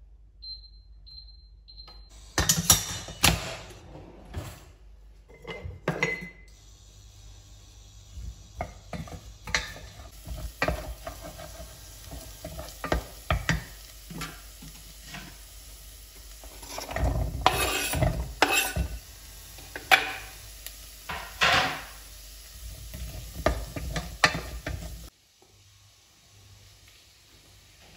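Diced onion sizzling in a stainless-steel saucepan, with a wooden spoon scraping and knocking against the pan as it is stirred. The sizzle starts a couple of seconds in and cuts off near the end.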